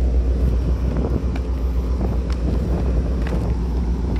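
Steady low drone of a docked car ferry's onboard machinery, with a faint hum above it and a few light ticks.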